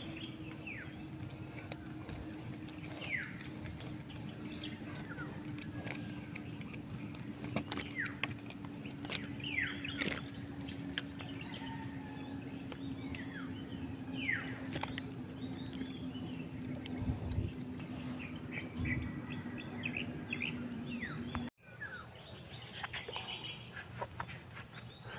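Birds calling with short, sharp, falling chirps every second or two, over a steady high-pitched insect drone and a steady low hum that cuts off about three quarters of the way through.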